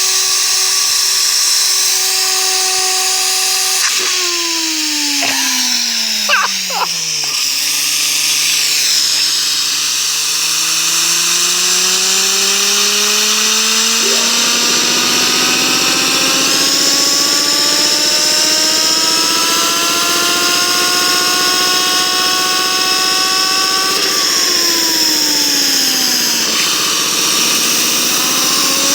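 Bearing humming with a pitched whine that follows its speed: the pitch falls for a few seconds, climbs slowly for more than ten seconds, dips again and rises once more, like a sportbike engine revving. A few short clicks come about six to seven seconds in.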